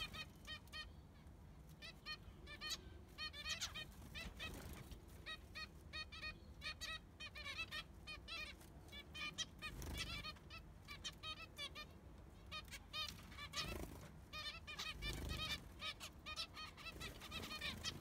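Zebra finches calling: a steady stream of short, repeated honk-like calls from several birds, with a flutter of wings right at the start and a few dull low thumps later on.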